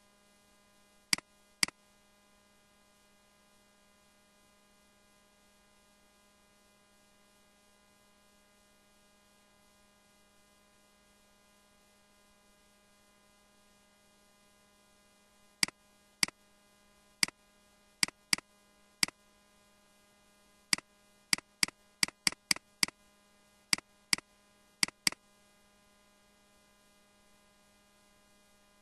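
Sharp single clicks, one as each handwritten stroke begins on a computer whiteboard: two about a second in, then a run of about sixteen between roughly 16 and 25 seconds. Under them, a faint steady electrical hum.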